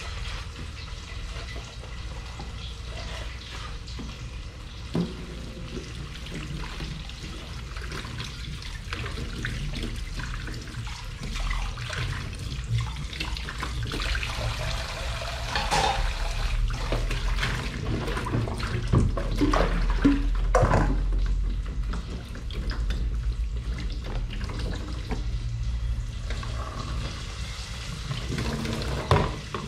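Dishes being washed at a kitchen sink: water running from the tap, with dishes and utensils clinking and knocking now and then, most often about halfway through.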